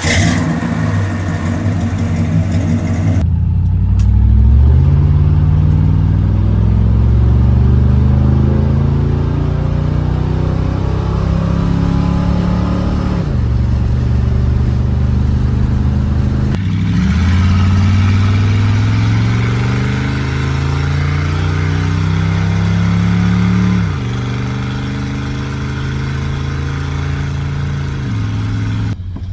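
Ford LTD's exhaust under acceleration: the engine note climbs steadily and drops back three times as the car shifts up through the gears, then settles into a steady cruise near the end.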